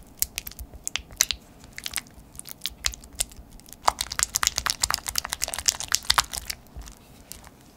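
Cream cheese being worked with a silicone spatula in a glass bowl: a run of short, sticky clicks and squelches. The strokes grow quicker and denser about four seconds in as it is beaten smooth, then stop shortly before the end.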